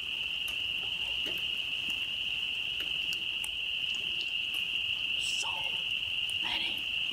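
Steady, high-pitched chorus of frogs calling without a break.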